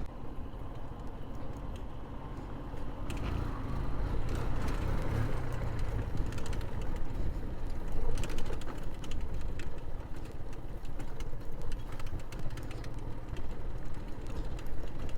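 Motorcycle running at low speed over a rough dirt track, a steady low rumble with scattered clicks and rattles.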